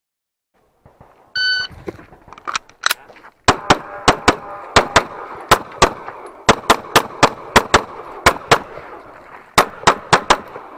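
A shot timer's start beep, then a pistol firing a long, fast string of shots, many in quick pairs, with a pause of about a second before a last rapid burst near the end. Some hits ring on steel plates.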